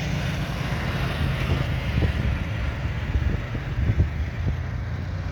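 Off-road buggy engine running with a steady low rumble, with a few short knocks and jolts about two and four seconds in, over wind noise.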